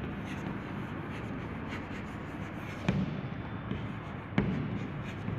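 Chalk writing on a blackboard: soft scratching and small ticks of the chalk against the board, with two sharper taps about three and four and a half seconds in.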